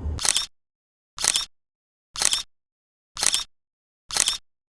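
A short, identical sound effect repeated five times, about once a second, with dead silence between each repeat.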